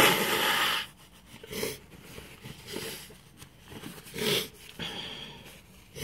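A man's nose and airway irritated by ground black pepper dust, running: one loud, forceful breathy blast right at the start, then several shorter, quieter sniffs and breaths.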